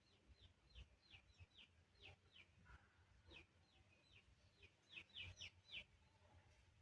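Faint, rapid chirping from birds: many short peeps, each falling in pitch, coming in irregular bunches, thickest about five seconds in.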